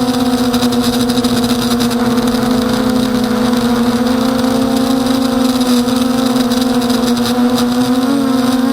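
Emax Nighthawk 250 FPV quadcopter's electric motors and propellers whining steadily in flight, the pitch wavering slightly near the end with throttle changes.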